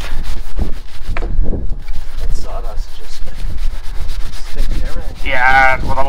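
A hand tool scraping and rubbing along the face of a freshly sawn red oak board in quick, repeated strokes. A brief wavering voice-like sound comes near the end.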